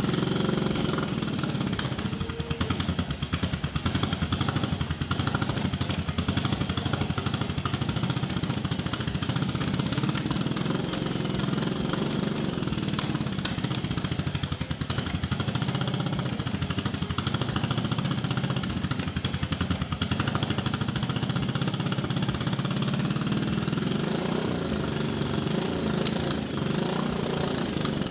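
1983 Yamaha Virago XV750's air-cooled V-twin running on choke just after a cold start, its carburettors freshly rebuilt and float levels reset. The engine speed swells up and settles back a few times.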